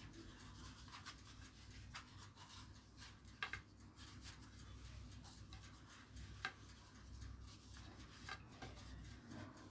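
Faint rustling of thin goulash (phyllo) dough sheets being laid over a pie and tucked into a round metal baking tray by hand, with two sharp little clicks, about three and six and a half seconds in.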